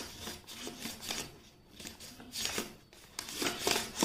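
Sheet of origami paper being folded and creased by hand, with irregular rustling and rubbing strokes that get louder and busier near the end.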